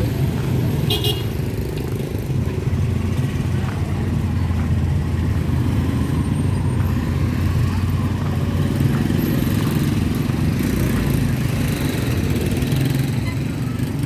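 Steady low rumble of motorbike and road traffic running past, with a short high beep about a second in.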